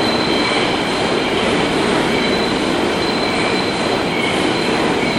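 New York City subway train running along the station platform: a steady, loud noise of wheels on rail with high, held wheel-squeal tones over it.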